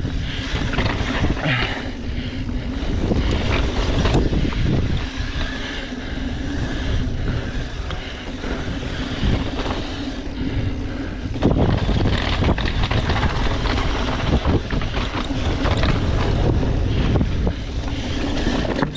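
Wind buffeting a GoPro's microphone and a Specialized Enduro mountain bike's tyres rolling fast over a dry dirt trail, with frequent knocks and clatters as the bike hits bumps. It gets louder about eleven seconds in.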